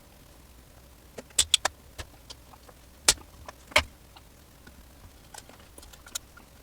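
Scattered sharp clicks and metallic taps of tools and parts being handled while working at the amplifier's relay, about seven distinct strikes, the loudest a little after a second in and again around three to four seconds in.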